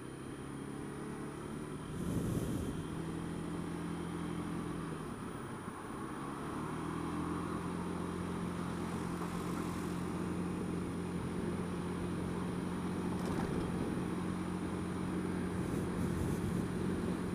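Honda Dio scooter engine running under way with road and wind noise. Its note wavers about two seconds in and again near six seconds, then holds steady.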